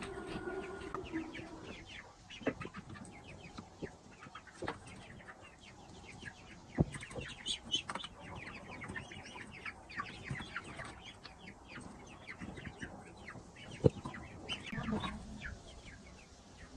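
Young poultry peeping and chirping in a coop: a busy run of short, high calls, with a few sharp knocks, the loudest about seven and fourteen seconds in.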